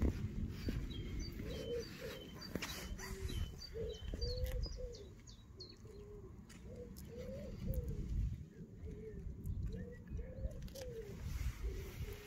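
A bird cooing in a low phrase, over and over. Small birds chirp high and quick during the first few seconds.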